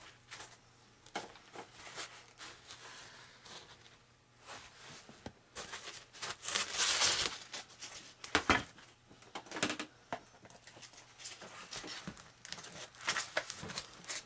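Foam wing pieces being handled and pushed together: irregular scraping, rubbing and crinkling of foam, with a louder rustle about seven seconds in and a sharp knock a little after.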